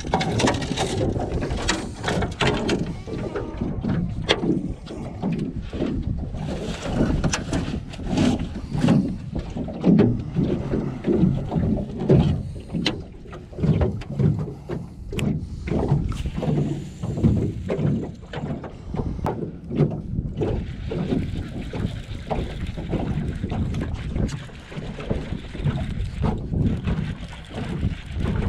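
Small flat-bottomed boat rocking on choppy water: waves slap against the hull and wind buffets the microphone. Irregular knocks come from rod and tackle being handled on the deck.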